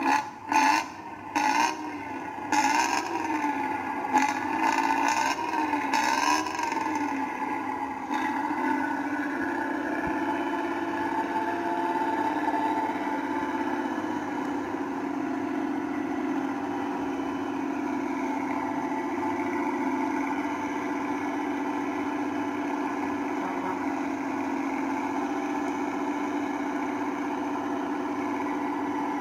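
Bus engine and exhaust sound coming thinly through laptop speakers, with no bass: a few short bursts and a wavering rev in the first several seconds, then a steady idling drone.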